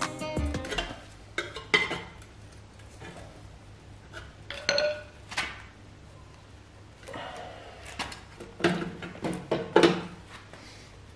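Metal scraping and clinking as a screwdriver pries open the ground-cut sheet-metal shell of an Audi RS4 exhaust silencer, peeling it back to get at the baffles and packing inside. There are scattered sharp clanks, a short metallic ring about halfway through and the loudest clanks near the end.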